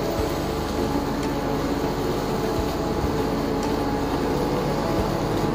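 Mashed kidney beans simmering in a nonstick pan on an induction cooktop, over a steady hum, with a few light knocks of a wooden spatula as they are stirred.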